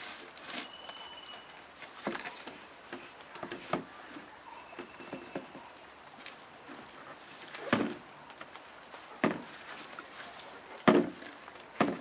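Yellow bamboo poles knocking hollowly and rope rustling as the poles are lashed together with jute twine, with scattered light knocks and four sharper knocks in the second half.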